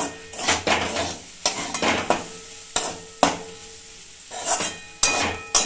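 Spatula stirring and scraping semolina with vegetables around a metal kadai, in irregular strokes about once or twice a second. The strokes are louder near the end.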